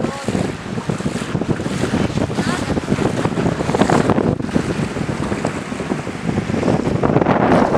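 Strong wind buffeting the microphone, over the rush of sea waves and moving water.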